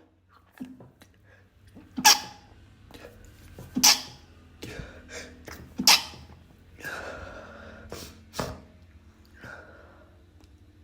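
A person sneezing repeatedly and trying to stifle the sneezes: three sharp, loud sneezes about two seconds apart, with quieter stifled sneezes and breaths in between.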